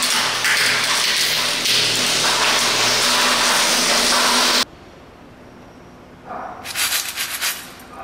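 Industrial twin-shaft shredder crushing and grinding material: a loud, dense crunching that stops abruptly a little past halfway. Near the end comes a short burst of sharp knocks and rattling with some ringing.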